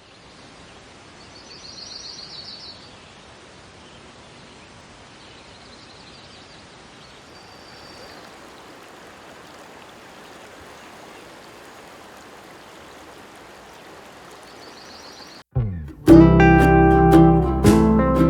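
Steady rushing of a river with small birds chirping now and then, a burst of trilling song about two seconds in. About sixteen seconds in it cuts out and loud plucked acoustic guitar music begins.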